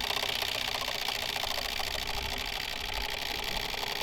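A spinning prize wheel's clicker ticking rapidly and evenly against the pegs.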